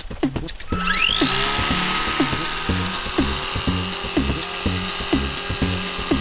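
Electric motor and propeller of a foam RC Cessna model plane spinning up about a second in with a fast rising whine, then holding a steady high whine at full throttle. Electronic dance music with a steady beat plays over it.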